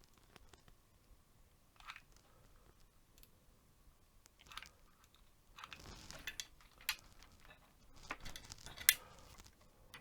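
Scattered handling noises: short rustles and sharp small clicks of parts and tools being handled, busiest in the second half, with the sharpest click near the end.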